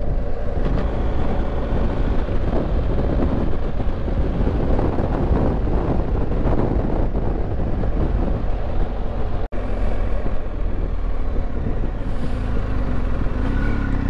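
Motorcycle on the move: engine running steadily under a heavy rush of wind on the helmet microphone. The sound cuts out for an instant about two-thirds of the way through.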